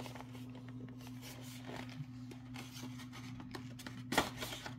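Light rustling and small clicks of a bead kit and its packaging being handled, with a sharper click about four seconds in, over a steady low hum.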